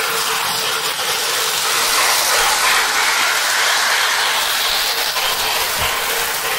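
Lionel electric model train running on its track: a steady mechanical whir and rattle of motor, gears and wheels, a little louder in the middle as the cars pass close.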